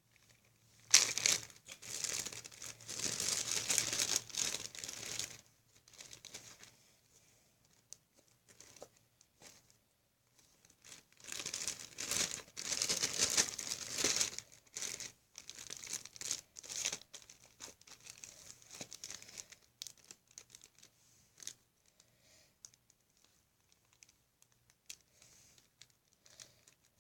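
Plastic zip-top bag crinkling and rustling as slime is pushed into it: two longer spells of handling, the first starting about a second in, with lighter scattered crinkles and ticks after them.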